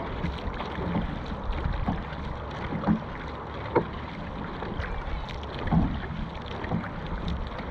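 Dragon boat paddling: paddles working the water in a steady wash of splashing, with a few sudden louder strokes standing out, and wind rumbling on the microphone.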